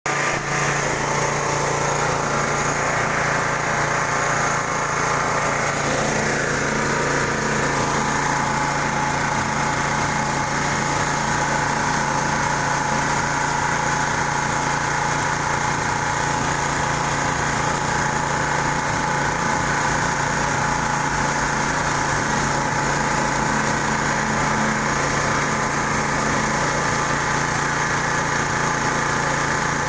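Vertical pellet mill running steadily, its drive and rollers making a continuous mechanical hum with a whine that drops slightly in pitch about seven seconds in, then holds.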